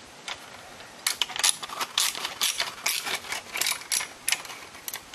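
Piston ring compressor being opened and handled, giving a run of quick metallic clicks and clinks from about a second in.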